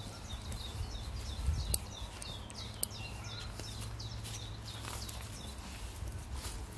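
Outdoor ambience: a small bird chirping in quick short falling notes, about three or four a second, through the first half. Under it runs a low wind rumble on the microphone, with a few footsteps and clicks.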